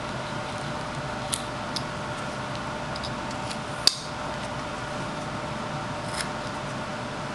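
A carving knife slicing chips off a small wooden horse carving: a handful of short, sharp snicks, the loudest about four seconds in, over a steady background hum.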